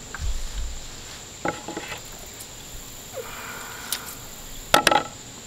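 Fiskars scissors snipping through a quail carcass's joints and bones: a few short snips, with a quick loud double snip near the end.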